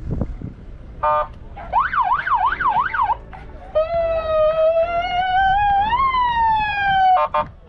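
Emergency-vehicle siren cycling through its tones. A short rapid stutter comes about a second in, then a fast up-and-down yelp, then a long wail that slowly climbs and falls away, ending in another short stutter.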